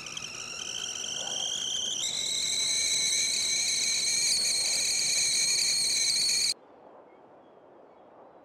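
Stovetop whistling kettle coming to the boil: a high whistle that rises in pitch and grows louder, drops to a steady, louder note about two seconds in, and cuts off suddenly about six and a half seconds in.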